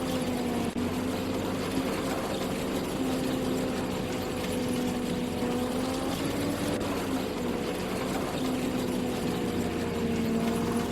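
Engine of harvesting machinery running steadily, its pitch wavering slightly up and down.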